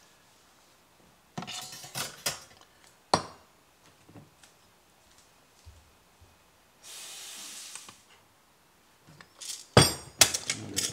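Metal clinks and knocks of a stainless espresso portafilter being wiped and set back in the machine, with a steady hiss of about a second in the middle. Near the end, a quick run of loud clicks as the lid of a stainless vacuum coffee canister is worked.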